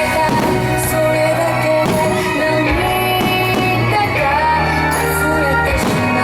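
Background music: a pop song, a melody line over sustained chords and bass.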